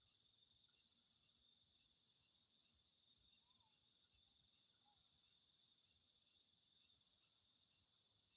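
Faint, steady chorus of crickets and other insects trilling in several high tones, with one insect chirping at an even rhythm beneath them. Two short, faint calls come around the middle.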